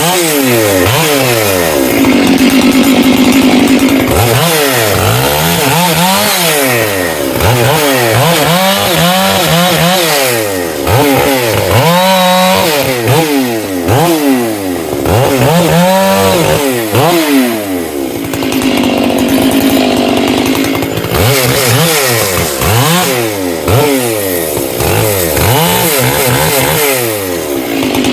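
Stihl MS 461 chainsaw revved up and down again and again, with a couple of steadier stretches at speed. It is being run right after its high-speed carburettor screw was turned in slightly, because it was running a little too rich on the high end.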